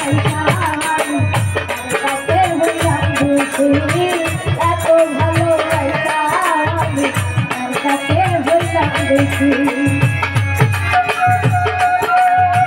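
Live Bengali folk song (a bicched song of separation): a young girl's voice carrying a wavering melody over hand-drum strokes and shaken rattle percussion, with a note held steady near the end.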